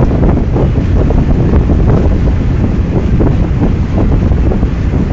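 Strong wind buffeting the microphone, a loud, gusty rumble, over the rush of water along a moving boat.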